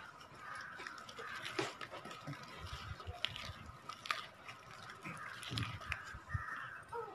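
Wire hand whisk scraping and clicking irregularly against a plastic mixing bowl as it stirs thick cake batter, with a few dull knocks toward the end.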